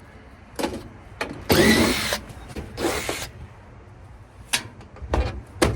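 Power drill with a quarter-inch nut driver backing out the screws that hold a washing machine's headboard. It runs in two short bursts about a second apart, the first speeding up and slowing down, and a few light clicks follow near the end.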